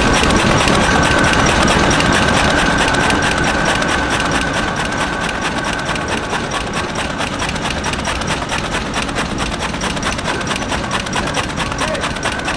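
Match-splint cutting machine running, a fast, even mechanical clatter as it cuts wood into matchstick splints that shower out, with a steady high hum under it.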